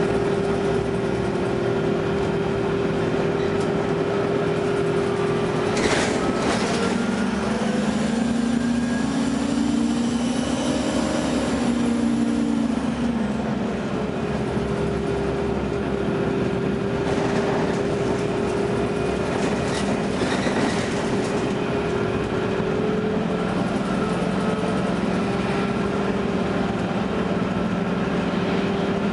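2009 Gillig Low Floor hybrid bus with a Cummins ISB diesel and Allison EP40 hybrid drive running, with a steady whine held over the engine and a second, lower tone that rises and falls about a third of the way in. A few sharp clicks come through; the uploader calls the bus's squeal awful.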